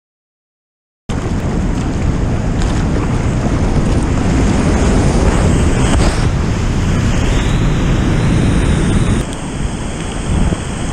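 Whitewater rapids rushing loudly and steadily around a kayak, with water and wind buffeting the microphone. It starts abruptly after about a second of silence.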